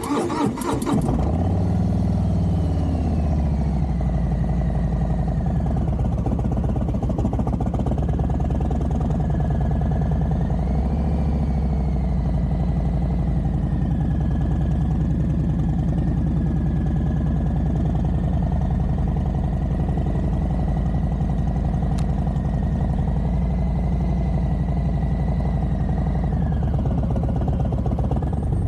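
Harley-Davidson Street Bob's Milwaukee-Eight V-twin cranking on the electric starter and catching within about a second on a cold morning start, then idling steadily.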